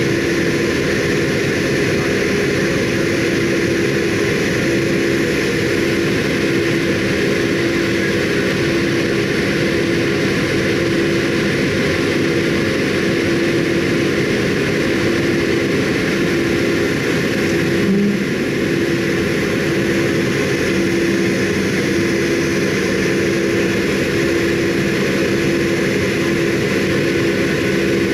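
Boeing 757 cabin noise in the climb after takeoff: a steady jet-engine drone with a constant low hum, heard through the cabin from a seat beside the wing engine. A faint knock about eighteen seconds in.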